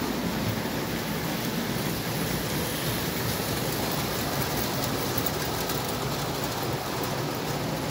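Tinplate O gauge model trains running on metal track: a steady rumble of wheels on rails and the electric locomotive's motor as a Buco locomotive and its cars pass by.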